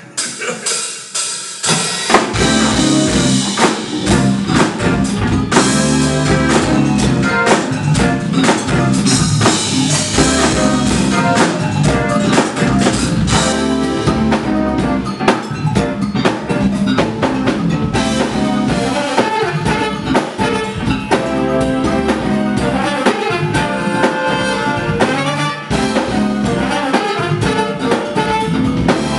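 A band playing a funk number, a drum kit driving a steady beat under bass and other instruments; it builds in over the first two seconds.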